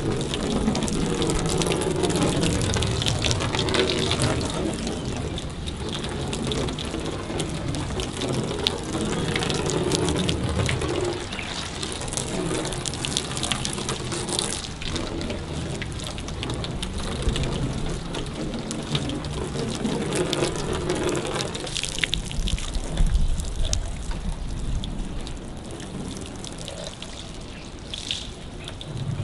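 Water from a hose running and splashing onto a car's painted hood and roof, then sheeting off the sealed paint.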